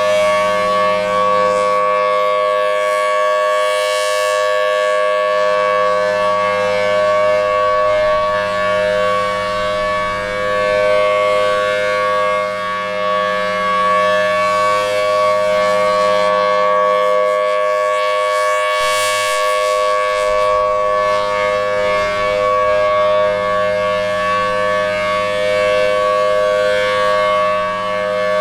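B-series Federal Signal Thunderbolt 1000T rotating outdoor warning siren sounding a full-alert steady tone, held at a constant pitch with no rise or fall. It grows brighter and louder twice, about fifteen seconds apart, as the rotating horn sweeps past.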